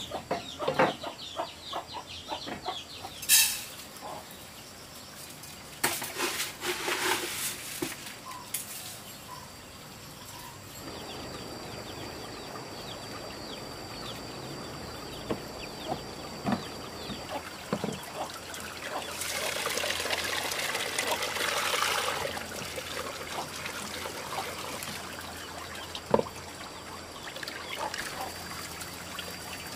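Chickens clucking amid scattered knocks in the first several seconds, then a steady trickle of running water that swells louder for a few seconds past the middle, with one sharp knock near the end.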